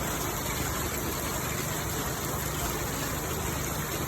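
Heavy rain falling, a steady even rush of noise, with a low steady hum underneath.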